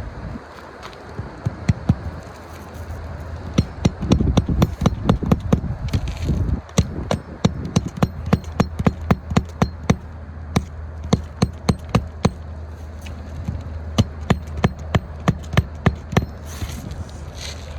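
Hammer striking roofing nails while a replacement shingle is nailed in: runs of sharp blows, two or three a second, over a steady low hum.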